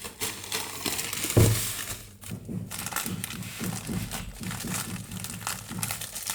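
Packaging crinkling and rustling as it is handled, with one thump about a second and a half in.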